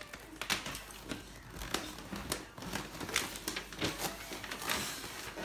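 Gift wrapping paper crinkling and tearing in irregular rustles and crackles as a present is pulled open by hand.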